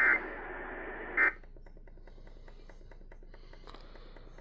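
Emergency Alert System end-of-message data bursts: two short, loud, buzzy two-tone screeches, one right at the start and one about a second later, heard over AM radio hiss. The hiss cuts off just after the second burst, leaving faint clicking.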